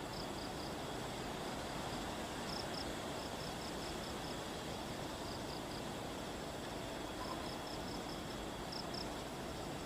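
Insects chirping in short, high, quickly repeated pulses that come in clusters every couple of seconds, over a steady outdoor hiss.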